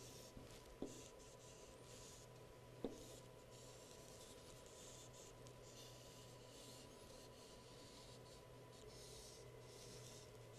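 Chalk scratching faintly on a chalkboard as a drawing is sketched, in short strokes that come and go about every second, with two light taps in the first three seconds. A faint steady electrical hum lies underneath.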